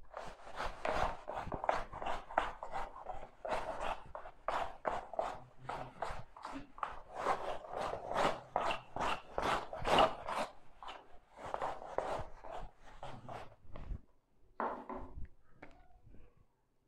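A whiteboard being wiped by hand in quick back-and-forth strokes, about two a second. The strokes stop about three seconds before the end, followed by one short, louder scrape.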